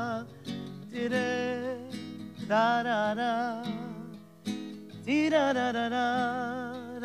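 A man singing long held notes with a wide vibrato in three phrases, accompanied by a classical guitar whose plucked chords ring out between them. This is the closing of a murga song sung solo.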